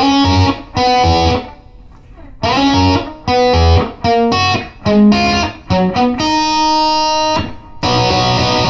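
Electric guitar, an Epiphone Les Paul, played through a Boss Katana Mk II amp with the booster, delay and room reverb switched on, testing a lead tone. It plays short phrases of lead notes with brief gaps, and one note is held and sustained for over a second about six seconds in.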